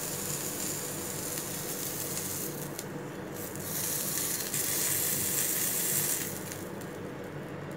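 Mutton rolls frying in shallow oil in a pan, a steady sizzle. It swells from about four seconds in while the rolls are turned with metal tongs, then dies down near the end.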